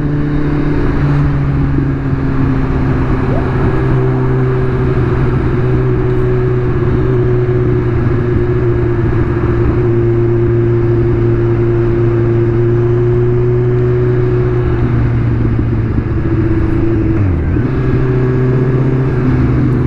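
Kawasaki Z1000 inline-four motorcycle engine running steadily at highway cruising speed, heard through the rider's mic. Its note dips briefly about seventeen seconds in, then steadies again.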